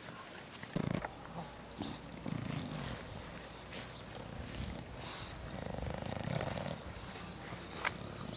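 English Bulldog puppies making low grunting sounds in several short bouts, with a few small clicks and knocks from handling or movement.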